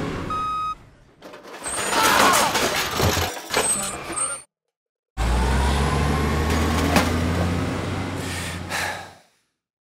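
Sound effects of a truck tipping its load: a reversing beep that stops under a second in, then a noisy rattling, crashing pour of debris. After a brief silence a loud steady low rumble with a rushing noise and one sharp knock runs on until it cuts off near the end.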